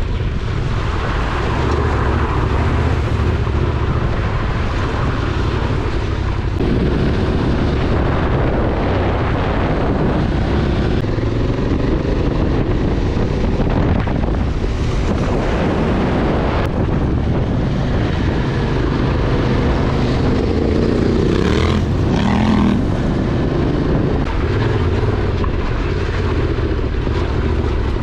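Yamaha Ténéré 700's parallel-twin engine running under way on rough off-road lanes, with wind noise on the microphone. The engine note shifts abruptly a few times.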